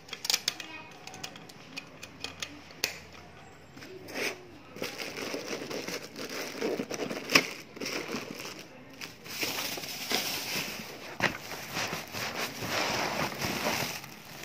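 Plastic packaging crinkling and rustling as it is handled, with scattered sharp clicks and knocks of parts being moved.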